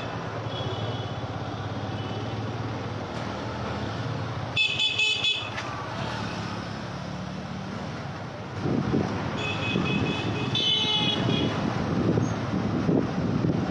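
Busy street traffic with vehicle horns honking: a quick burst of several short toots about four and a half seconds in and more honking around ten seconds, over a steady engine and road rumble that grows louder in the second half.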